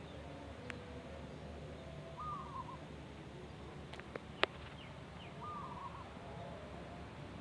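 Wild zebra dove (perkutut) cooing, two short rolling phrases about three seconds apart; the uploader classes its voice as 'bedah karang'. A few sharp clicks, the loudest about halfway through.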